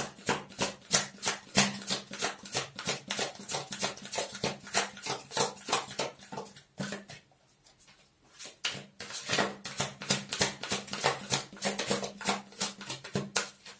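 A deck of tarot cards being shuffled by hand: quick, rhythmic slaps and flicks of cards, about four a second, that pause briefly about seven seconds in and then resume.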